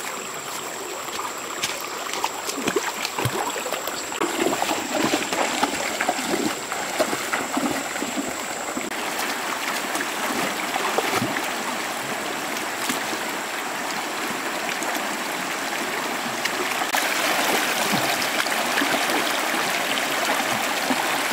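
Shallow rocky river flowing steadily, with scattered knocks and splashes of things being moved at the water's edge and in the stream. A thin, steady high tone runs over the water for the first nine seconds or so.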